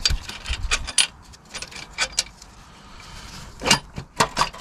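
Irregular metallic clinks and light knocks as the cylinder head of a Vauxhall Corsa 1.4 A14XER engine is rocked loose and lifted off the block by hand. The sharpest knocks come near the end.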